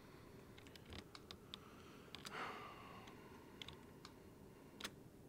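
Sparse, faint clicks of a computer keyboard and mouse, a few scattered keystrokes and button clicks, with a short soft hiss a little over two seconds in.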